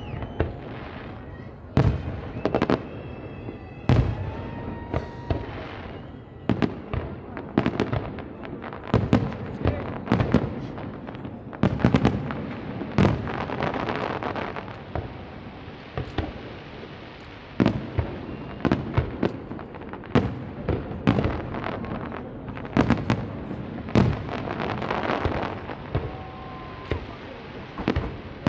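Fireworks display: aerial shells bursting in a dense, irregular run of sharp bangs, several a second at times, with a few short whistles among them.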